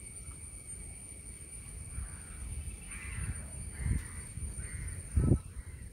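A crow cawing a few times around the middle, over a steady high insect drone. A sharp low thump about five seconds in is the loudest sound.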